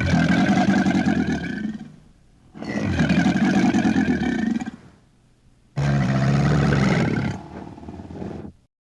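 A crocodilian gives three long, deep, rough bellows, each about two seconds long, with short pauses between them. The last one trails off more quietly before stopping.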